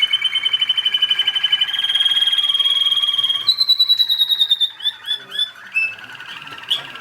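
American Singer canary singing a long run of rapid trills held on one pitch. About halfway through it switches to a higher trill that slides down, then breaks into shorter, choppier notes near the end.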